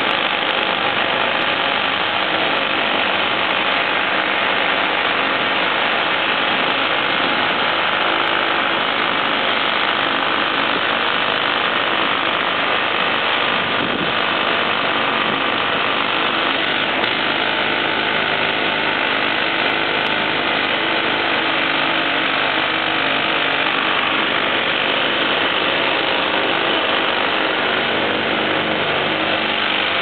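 Jackhammer hammering continuously, loud and steady without a pause.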